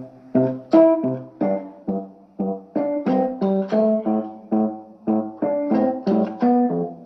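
Samsung Galaxy phone ringtone playing: a looping melody of short piano-like keyboard notes, about three a second, each struck and quickly fading.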